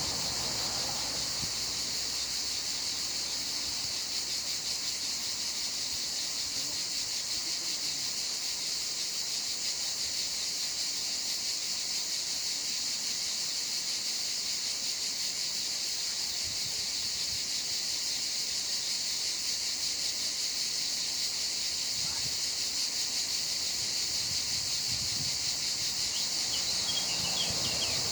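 Steady insect chorus, a continuous high shrill drone that holds unchanged throughout, with a few faint chirps near the end.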